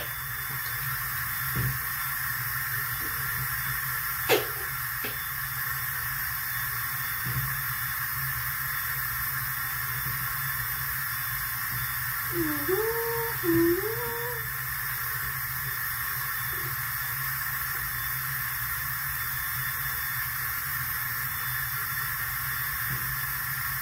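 Steady hiss throughout, with a single click about four seconds in and a brief hummed vocal sound about halfway through.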